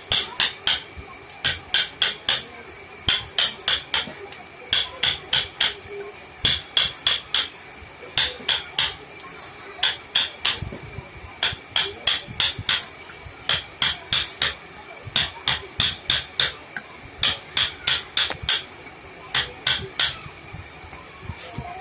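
Hammer tapping in quick bursts of four or five sharp, ringing metallic strikes, a burst about every second, as in woodworking.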